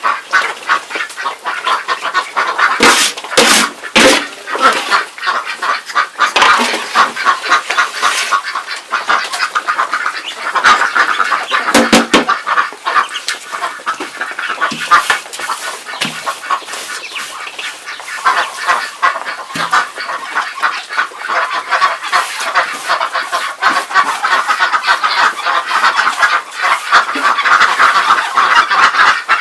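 A flock of domestic ducks calling and chattering nonstop while they are fed, with a few sharp knocks a few seconds in and about twelve seconds in.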